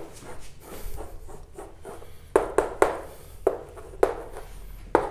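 Writing on a board: a few sharp taps and knocks of the writing tool, several close together in the middle of the stretch.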